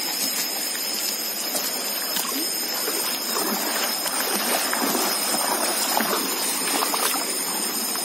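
Shallow stream running over rocks and gravel, a steady rush of water, with splashes from bare feet wading through it.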